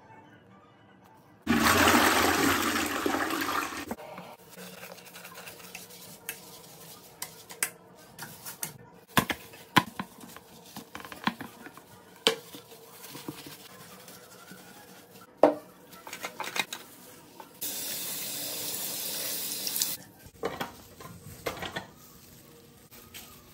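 Bathroom cleaning sounds: water rushes loudly for about two and a half seconds, starting abruptly about a second and a half in. Scattered knocks and clicks of things being handled follow, then a second steady rush of water near the end that cuts off suddenly, and soft rubbing.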